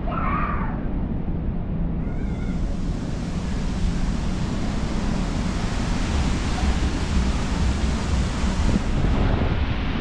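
Strong wind buffeting the microphone with a steady low rumble, and a rushing hiss of wind and sea that swells about two seconds in and eases near the end.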